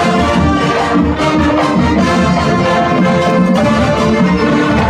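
High school marching band playing its field show, the brass holding full sustained chords over the band's low end and percussion.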